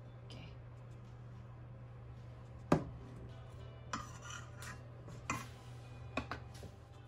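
Kitchen utensils and dishes clattering: one sharp knock a little under three seconds in, the loudest, then several lighter clinks and knocks. A steady low hum runs underneath.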